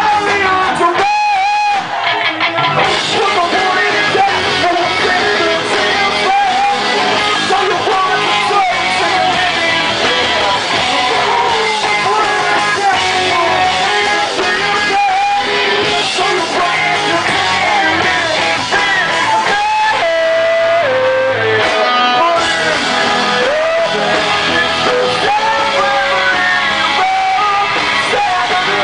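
A rock band playing live, with guitar and a singer's voice over the band.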